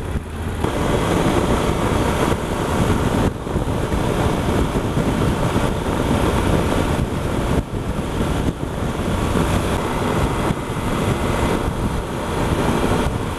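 Wind rushing over the helmet-mounted microphone, with the Yamaha Super Ténéré's parallel-twin engine and tyre noise underneath, cruising at highway speed. It grows louder about half a second in, then holds steady.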